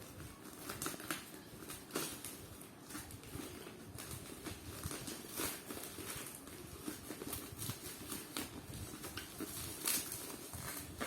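Packaging being handled by hand: scattered light taps, clicks and rustles, with a sharper click about two seconds in and another near the end.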